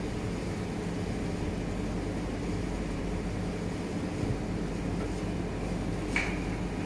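Steady low hum of running machinery, even throughout, with a short knock about six seconds in.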